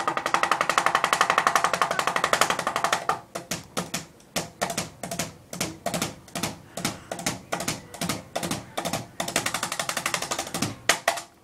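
Ceiling fan blades smacking repeatedly against a hand held up into them: a fast, rattling run of hits that, after about three seconds, spreads out into separate, slower slaps as the fan slows, dying away near the end.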